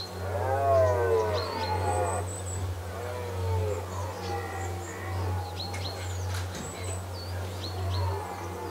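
Red deer stag roaring in the rut: a long, loud bellow about a second in and a shorter call around three seconds. Small birds chirp throughout over a steady low hum.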